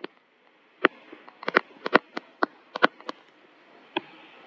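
A pen stylus tapping and clicking on a tablet screen while handwriting: a quick irregular run of light clicks, then a single click near the end.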